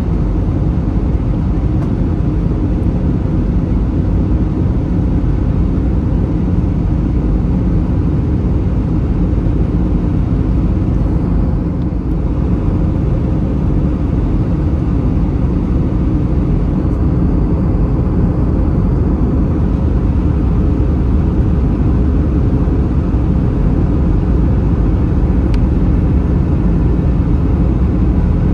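Airbus A321 cabin noise in flight: the steady low rumble of the jet engines and airflow, unchanging throughout.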